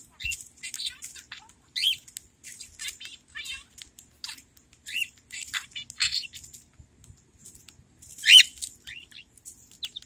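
Pet budgerigar chattering at its toy bell in quick strings of short, high chirps and warbles. The loudest call comes about eight seconds in.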